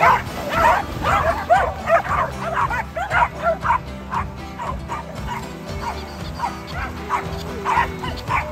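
A pack of dogs barking and yipping in overlapping excited calls as they chase a ball through water. The calls come thick and fast for the first few seconds, then thin out. Background music plays throughout.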